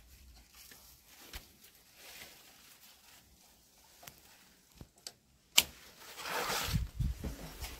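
Squash vine leaves rustling and handling noise as hands push into the foliage, with faint scattered clicks and one sharp click about five and a half seconds in; the rustling with low thumps grows louder near the end.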